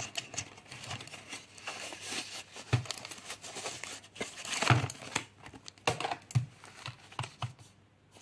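Mouse packaging being handled and unwrapped: irregular crinkling and rustling with small clicks, louder bursts about three, five and six and a half seconds in, dying down near the end.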